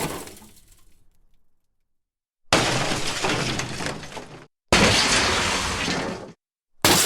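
A run of crash sound effects of glass shattering: the previous crash dies away in the first second, then after a short silence two crashes hit about two and a half and four and a half seconds in, each starting suddenly and clattering on for under two seconds before cutting off, and another begins near the end.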